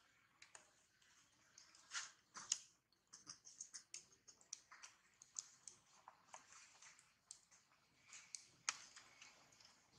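Faint, irregular clicking and light rustling, a few sharper clicks about two seconds in and again near the end, over near silence.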